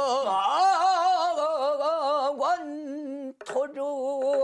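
A male pansori singer drawing out a long sung note in traditional Korean vocal style, its pitch wavering widely with heavy vibrato. He breaks off briefly about three seconds in, then starts the next phrase.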